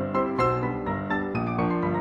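Background music: a keyboard melody with piano-like notes in quick succession.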